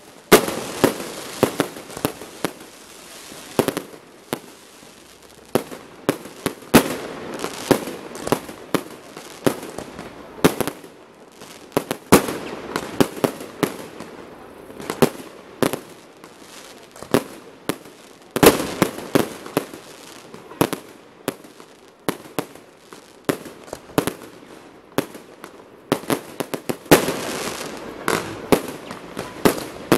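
Aerial fireworks display: shells bursting one after another in sharp bangs over a bed of crackling, with dense barrages at the start, about a third of the way in, and near the end.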